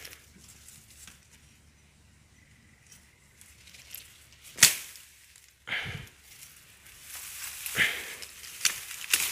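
A bamboo cane being cut at the base in a bamboo clump: one sharp, loud crack about halfway through, and a duller knock about a second later. Bamboo leaves and stalks then rustle near the end as the cane is moved through the clump.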